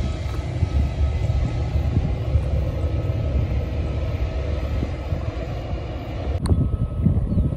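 Airbus A320 airliner's jet engines rumbling steadily as it rolls along the runway, with a click near the end.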